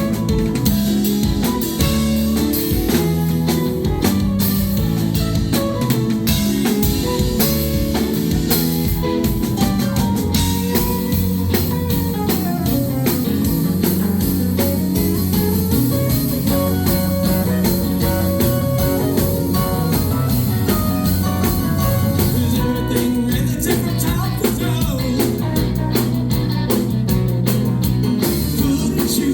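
A live rock band playing a song, with guitar and a drum kit keeping a steady beat.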